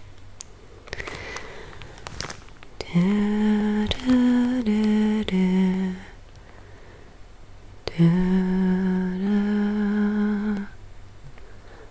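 A woman humming a slow, soft melody close to the microphone, in two short phrases of held notes, the first about three seconds in and the second about eight seconds in.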